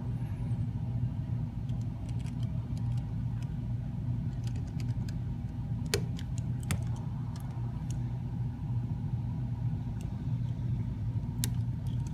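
Small clicks and taps of tweezers and metal bracket parts being handled and fitted inside a smartphone, scattered irregularly over a steady low background hum.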